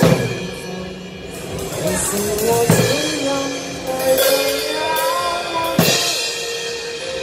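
Acoustic drum kit played by a child along to a recorded backing track with a melody line, with cymbal crashes right at the start, about a third of the way in and again near the end.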